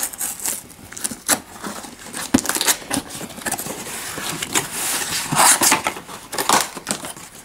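Fingers scratching and tapping on a cardboard box while picking at packing tape, with short tearing rasps as the tape is peeled up off the cardboard about five to six and a half seconds in.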